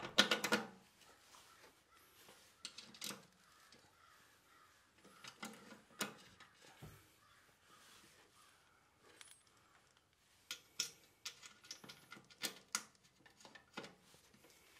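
Light metallic clicks and clinks of a new flange bearing and its housing being handled and seated over the shaft on the snowblower housing. There is a louder cluster at the start, a few single clicks in the middle, and a quicker run of clicks in the last few seconds.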